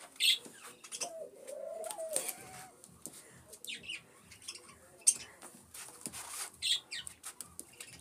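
An Aseel chicken gives a few short, low calls that rise and fall in pitch between about one and two and a half seconds in. Scattered clicks and scuffs run through the rest.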